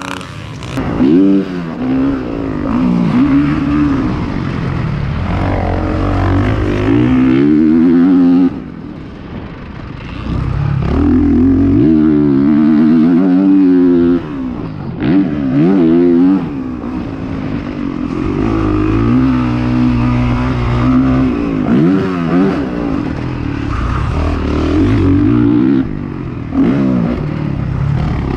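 Honda motocross bike engine revving hard, its pitch climbing through the gears and falling each time the throttle is rolled off, over and over. It drops off sharply about eight seconds in and again around fourteen seconds.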